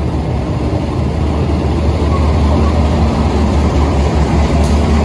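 KAI diesel locomotive running as it pulls into the station past the platform: a deep, steady engine drone that grows slightly louder as it comes level.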